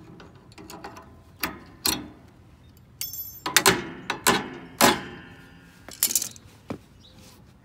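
Channel-lock pliers working a cotter pin out of a steel pin on a riding mower's rear deck arm: a series of sharp metal clicks and knocks at uneven spacing, with a brief ringing ping about three seconds in.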